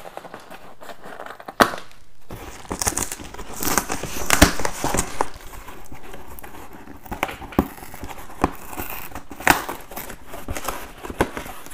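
Corrugated cardboard shipping box being pried and torn open by hand: irregular crackling and short ripping of the cardboard flap, busiest a few seconds in.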